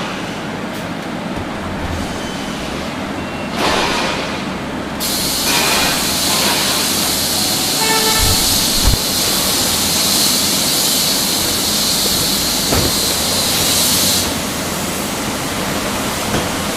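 Steady rumbling machinery or vehicle noise. A loud hiss comes in about five seconds in and cuts off about nine seconds later.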